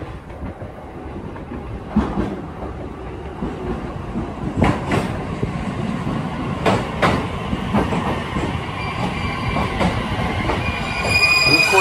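JR East 209 series electric commuter train pulling into the platform: a low rumble with the wheels knocking over rail joints, and the brakes beginning to squeal near the end as it slows to a stop.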